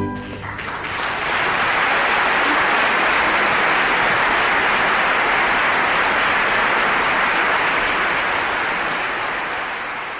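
Opera house audience applauding, building within about a second as the orchestra's last chord stops, then fading near the end.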